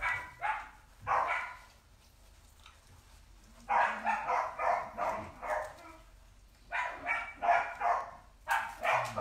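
A dog barking: a couple of single barks, then runs of several quick barks with short pauses between the runs.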